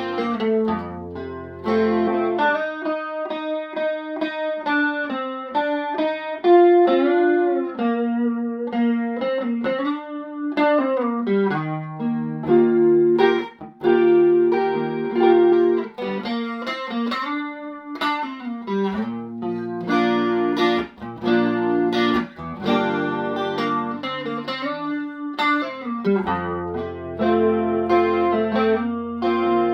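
Electric guitar, a Fender Telecaster, played through a Fender '57 Tweed Twin tube amp with no effects: a mix of chords and single-note lead lines with several string bends.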